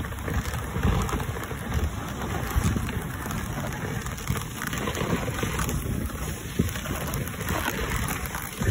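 Wind buffeting the microphone over the hiss and scrape of a dog sled's runners on snow as the sled is pulled along a trail, an uneven low rumble throughout.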